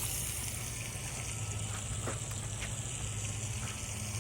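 Chicken frying in olive oil in a pan: a steady sizzle, with a low hum underneath and a few faint clicks.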